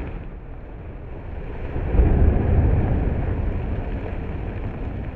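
Low rumble of an opencast coal mine blast rolling on after the detonations. It swells again about two seconds in, then slowly fades.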